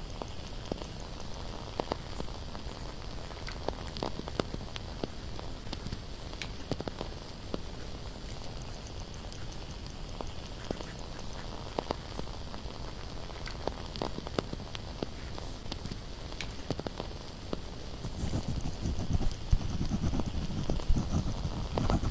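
Candle crackling: scattered sharp pops and ticks over a steady soft hiss. About eighteen seconds in, a louder scratching and rustling joins in.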